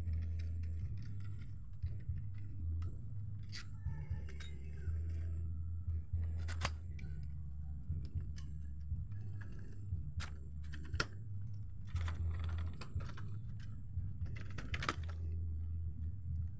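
Irregular small metal clicks and clinks as the clamp on a kick scooter's steering tube is worked and the handlebar tube is pulled free, over a low steady hum.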